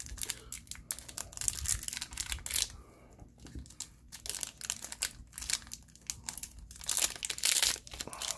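Trading-card booster pack wrapper being torn open and crinkled by hand as the cards are pulled out: a string of crackling rustles, loudest near the start and again near the end.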